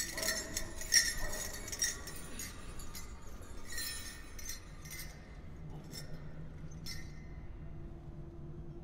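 Dance bells on a dancer's regalia jingling in irregular shakes, busiest in the first two seconds, then a few scattered jingles.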